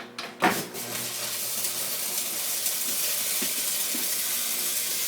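Arc welder striking an arc with a couple of sharp pops, then a steady crackling sizzle as a weld is run on steel. Stick electrodes are in use.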